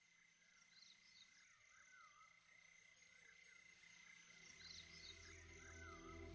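Very faint, repeated short chirping calls over a steady high tone. Soft ambient music swells in from about two-thirds of the way through.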